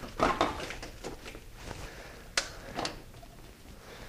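Hands and hand tools working on engine parts under the hood during disassembly: scattered clicks and knocks, a cluster just after the start and two sharp taps a little past halfway.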